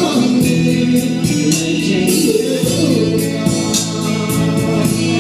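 A man singing into a hand-held microphone over loud backing music with a steady beat, the voice holding long notes.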